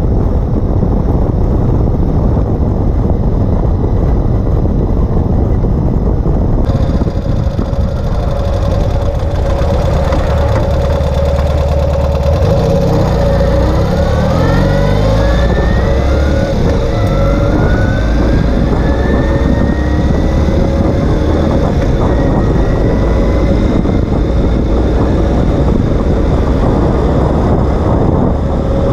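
Ural Gear Up sidecar motorcycle on the move, heard from under its chassis: the air-cooled boxer twin running under loud, steady road and wind rush. About halfway through, the engine climbs in pitch for several seconds as it accelerates.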